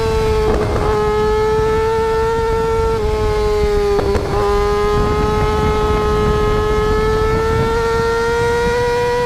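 Motorcycle engines held at high revs during wheelies: one steady, loud drone that slowly climbs in pitch, broken briefly twice where it drops and picks up again.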